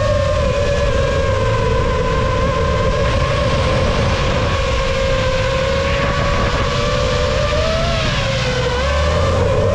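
FPV quadcopter's brushless motors and propellers whining at a steady pitch, which dips and climbs again near the end as the throttle changes, over a low rushing noise.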